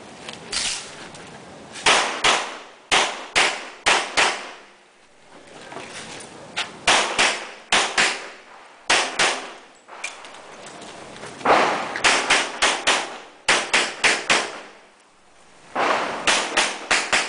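Pistol shots fired in quick pairs and rapid strings, with gaps of a second or two between strings, as a practical-shooting course of fire is run.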